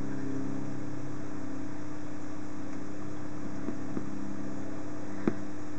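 Steady mechanical hum of a small motor, unchanging throughout, with a few faint clicks, the sharpest about five seconds in.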